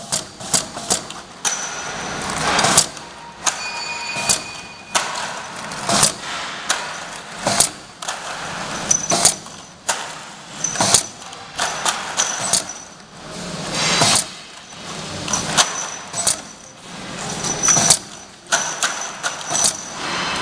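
Automatic flat-surface labeling machine running: conveyor and label applicator with irregular sharp clicks and clatters, about once or twice a second, as plastic clamshell packs pass under the label head and pressing roller, with brief high-pitched whines now and then.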